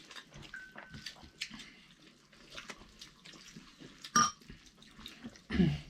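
Quiet eating sounds of a meal: soft wet mouth and food noises with small scattered clicks, and one brief clink of tableware about four seconds in.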